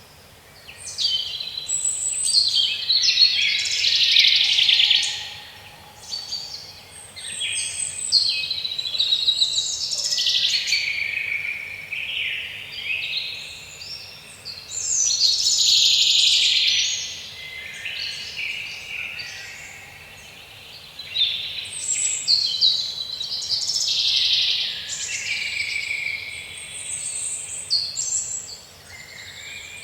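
Small birds chirping and singing, high-pitched and busy, in bouts of a few seconds with short lulls between.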